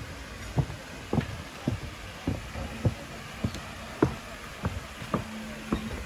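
Footsteps walking at a steady pace, a little under two steps a second, over a faint steady background hiss.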